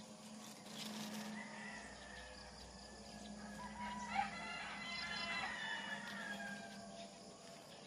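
Rooster crowing once, a long call starting about halfway through.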